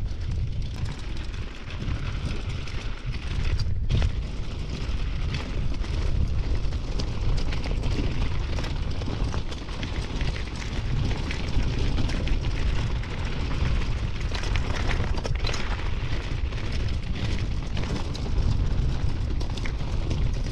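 Wind buffeting the microphone with a heavy, steady rumble, over the crunch of mountain-bike tyres on a rough dirt and gravel trail and small rattles from the bike.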